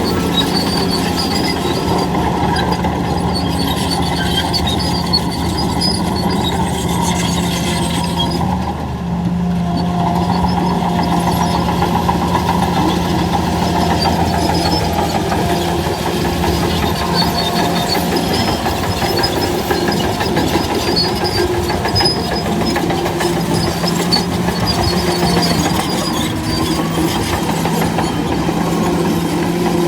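Bulldozer's diesel engine running steadily under load with a dense mechanical clatter. Its pitch dips briefly about nine seconds in, then recovers.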